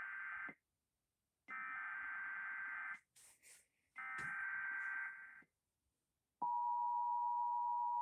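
Emergency Alert System SAME header: the end of one burst of buzzy digital data tones, then two more bursts about a second and a half long each with short gaps between. About six and a half seconds in, the steady two-tone EAS attention signal starts and is the loudest sound.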